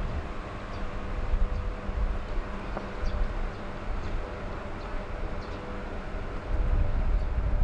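Steady machinery noise: a constant hum over a low, uneven rumble.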